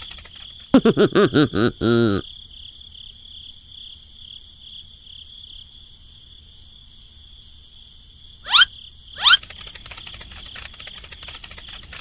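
Steady chirring of crickets in the background throughout. About a second in comes a short burst of rapid, squeaky, voice-like chattering, and near eight and a half and nine seconds two quick upward-sweeping chirps.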